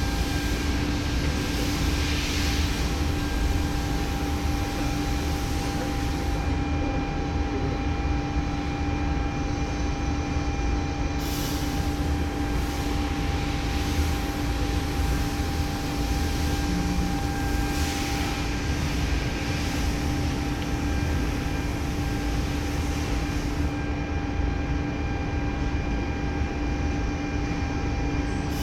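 CNC orthopedic milling machine running: a steady low hum with constant whining tones from its motors, and the high hiss rising briefly a few times.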